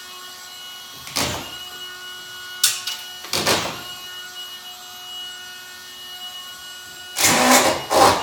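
Drywall screw gun running with a steady motor whine, with short loud bursts as screws are driven into the ceiling board, about four times, the last one longer near the end.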